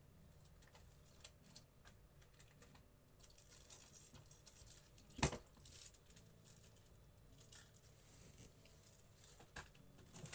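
Faint, scattered taps of typing on a smartphone's on-screen keyboard, with one sharper click about five seconds in, over quiet room tone.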